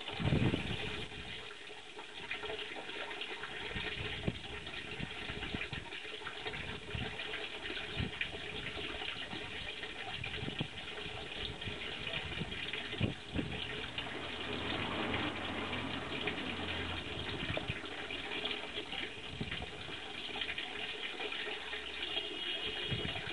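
Water from a small spout pouring steadily into a garden koi pond, with a few short low thuds or splashes.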